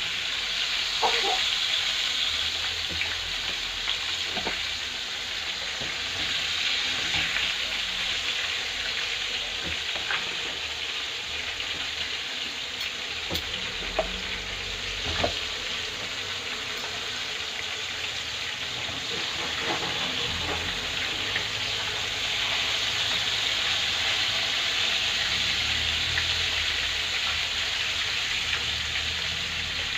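Breaded sardine fillets frying in hot oil in a pan: a steady sizzling hiss, with a few light clicks as pieces are lifted out with a fork.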